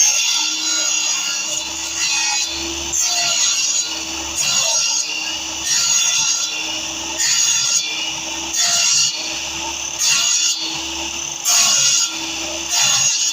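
Hand mitre saw cutting wood in steady back-and-forth strokes, a louder cutting stroke about every second and a bit.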